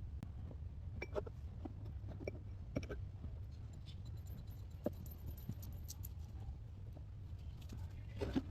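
Low steady hum with scattered light clicks and taps, a slightly louder knock near the end.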